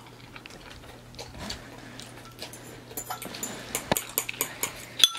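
Someone eating spicy ramen noodles: faint slurping and chewing, with a few light clicks of a fork against a ceramic bowl, sharper ones near the end.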